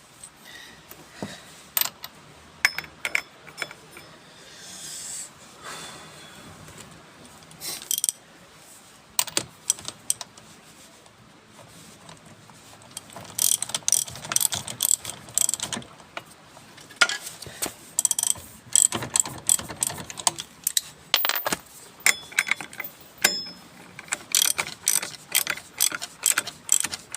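Ratcheting hand tool tightening fasteners: scattered sharp clicks, then quick runs of clicking about halfway through and again near the end.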